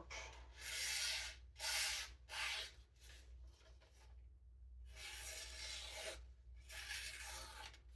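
Sharpened knife blade slicing through paper in a sharpness test: three quick rasping cuts in the first few seconds, then a softer, longer stretch of cutting.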